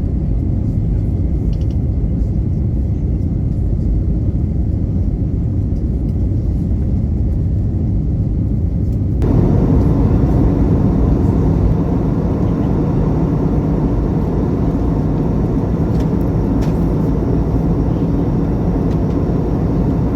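Airbus A320neo cabin noise: the engines and rushing air make a steady low rumble. About nine seconds in, it suddenly jumps louder and brighter.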